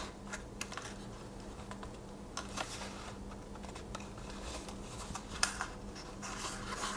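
Faint scattered clicks and light rustles of a Swiss Army knife's box and paper wrapping being handled and opened, over a low steady hum.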